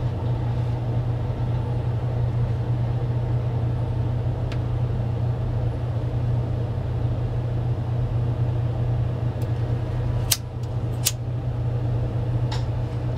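A steady low hum with a rumbling undertone, broken by a few sharp clicks, two of them close together about ten seconds in.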